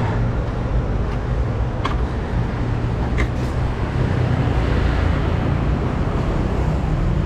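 Steady street traffic noise, a low rumble of motor vehicles, with a few light clicks in the first half.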